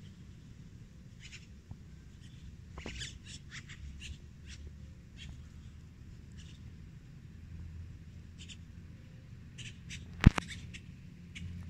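Short, high chirps from small animals, scattered irregularly and sometimes in quick little runs, over a steady low rumble. One sharp click stands out about ten seconds in.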